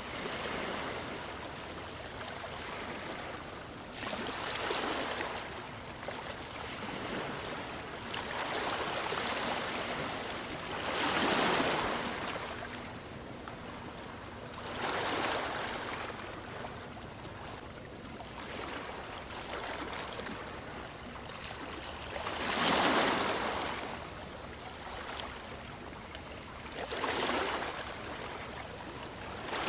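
Ocean waves breaking on a beach: a continuous wash of surf that swells and fades, with louder breakers every few seconds. The strongest come about a third of the way in and about three-quarters through.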